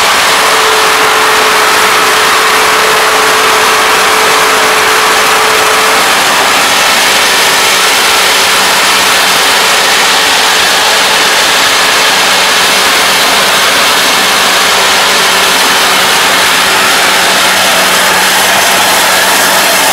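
Kubota ARN460 combine harvester running at work cutting rice: its engine and threshing machinery make a loud, steady noise. A steady whine rides on top for the first six seconds or so, then stops.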